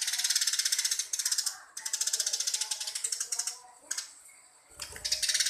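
Sparrow chattering in fast runs of high chirps: two long runs, a pause of about a second, then another run starting near the end.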